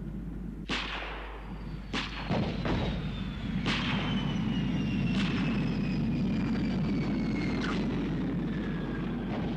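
Cartoon sound effects: a handful of sharp cracks a second or more apart over a steady low noise, with a thin whistle falling slowly in pitch through the middle.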